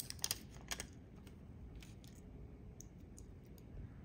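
Light clicks and rattles of a stainless steel watch bracelet and case handled in the fingers: a quick cluster of clicks in the first second, then a few fainter ones.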